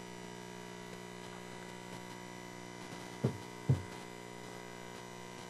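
Steady electrical mains hum on the meeting-room sound system, with two dull thumps a little over three seconds in, about half a second apart.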